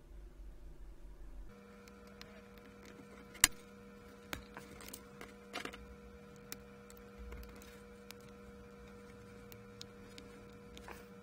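Scattered sharp clicks and taps of a pulse oximeter's moulded plastic finger probe being handled and opened, the loudest a snap about three and a half seconds in, over a steady electrical hum.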